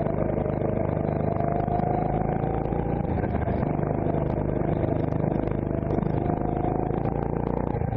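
Onboard sound of a CRG Centurion rental go-kart's engine running hard through slow corners. The engine note climbs, falls about three seconds in, climbs again, and dips sharply near the end before picking up.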